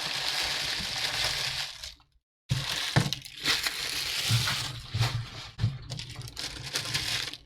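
Foil trading-card packs and a cardboard hobby box being handled, packs pulled out one after another: crinkling and rustling with sharp clicks and knocks. The sound drops out completely for a moment about two seconds in.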